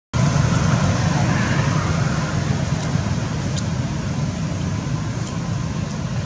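Steady outdoor background noise: a low rumble with a hiss over it and a few faint ticks.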